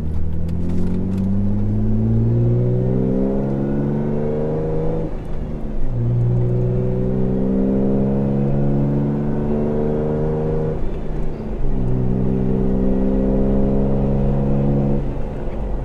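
Jeep Wrangler JK's V6 through a Pypes cat-back performance exhaust with a small muffler, heard from inside the cabin while accelerating hard from a stop to highway speed. The engine note climbs steadily in pitch, drops back at upshifts about five and eleven seconds in and again near the end, then climbs again each time.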